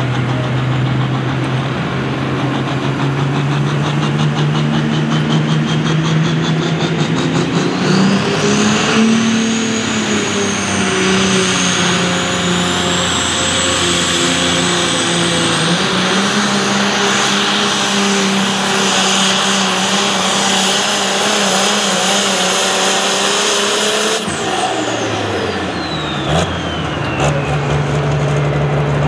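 International 1066 Pro Stock pulling tractor's turbocharged diesel engine at full power under load, with a turbo whine that climbs steadily to a high scream over the first dozen seconds. Near the end the throttle comes off suddenly, the turbo whine falls away as it spins down, and the engine settles back to idle.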